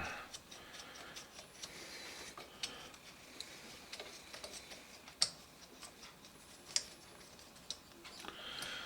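Faint, scattered small clicks and light handling noise from a 1983 Honda V65 Magna carburetor bank as the choke actuator arm is worked loose from the choke plunger, with a few sharper clicks spaced a second or two apart.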